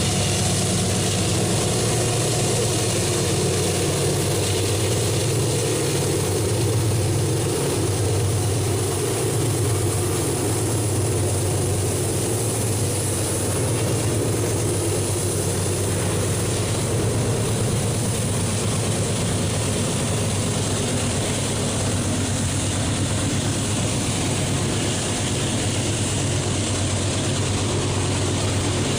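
Iron-ore freight train passing: a diesel locomotive engine drones steadily over the broad rolling rumble of the train.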